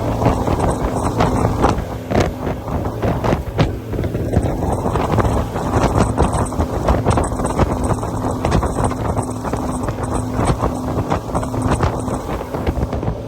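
Speedboat running at speed, wind buffeting the microphone heavily over the steady hum of its engine.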